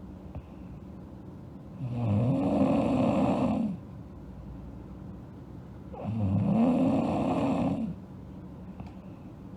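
A girl snoring in her sleep: two long snores of about two seconds each, some four seconds apart, with quieter pauses between them.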